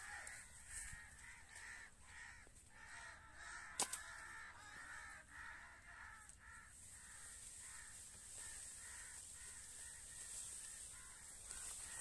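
Crows cawing over and over, fading in the second half. A single sharp crack about four seconds in.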